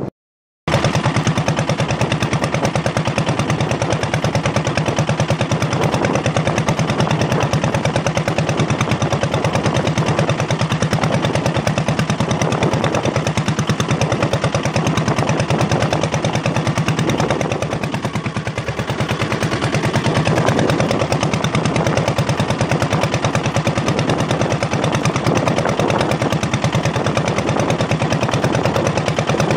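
Small wooden fishing boat's inboard engine running under way, a loud, rapid, steady chugging that starts abruptly just after the beginning and dips slightly about eighteen seconds in.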